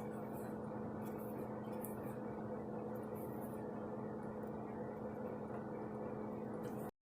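Low steady room noise with a faint steady hum. It cuts off abruptly to dead silence near the end.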